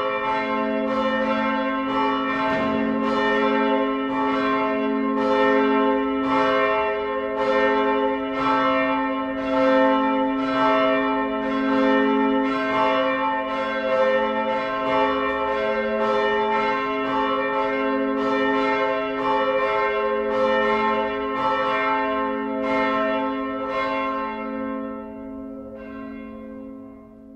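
Church bells ringing, heard from inside the church: a steady succession of strokes, about one a second, over a sustained humming ring. About 25 seconds in the strokes stop and the ringing fades away.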